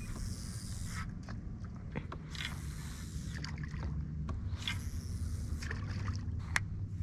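Native Propel Slayer 13 pedal-drive kayak moving through calm water: a swish of water along the hull about every two and a half seconds over a steady low rumble, with a few light clicks.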